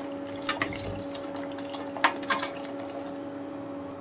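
Hot water poured in a steady stream into a steel pot of cooked moong dal, splashing and dripping. There are a few light knocks of the ladle against the pot. The pour stops about three seconds in.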